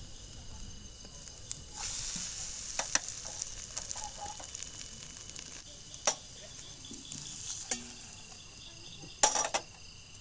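Forest insects chirring in steady high-pitched tones, with a hiss that swells about two seconds in and a handful of sharp clicks.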